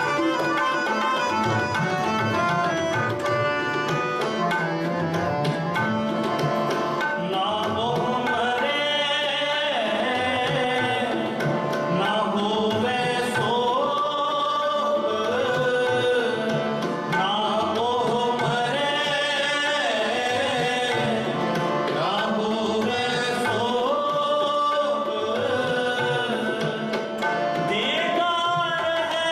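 Sikh shabad kirtan: two NAGI harmoniums holding the melody over steady tabla strokes. Male voices join in singing the hymn about seven seconds in.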